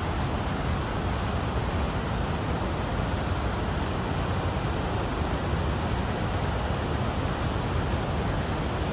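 Steady, even rushing of a large waterfall, the falling water's roar filling everything from deep rumble to hiss.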